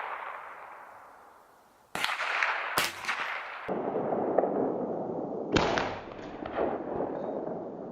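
.22 rifle shots: the ring of a previous shot dies away at the start, then two sharp cracks about two seconds in and a moment later, each ringing out, and another crack a little past halfway.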